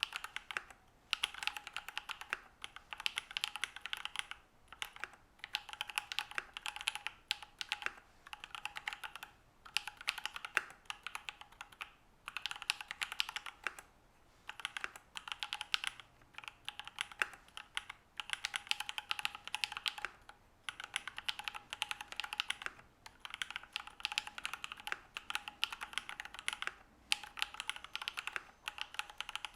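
Typing on a Matrix Noah V2 mechanical keyboard with lubed Alpaca V2 linear switches in an aluminium plate and PBT keycaps: fast runs of soft clacks that come in bursts of a second or two, with short pauses between them.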